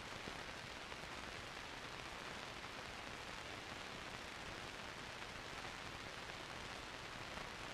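Steady, even hiss with nothing else over it: the background noise of an old film soundtrack.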